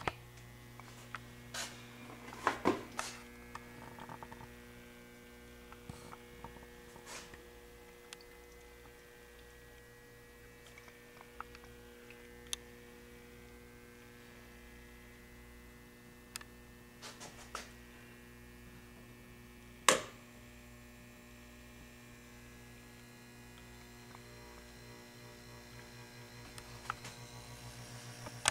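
Steady electrical hum from a laboratory overhead mixer and its speed controller, with a few scattered clicks and knocks. Near the end a fast fluttering and higher steady tones build in over the hum.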